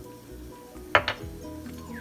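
Soft background music with steady held notes, and a sharp double clink of kitchenware being set down on the countertop about a second in.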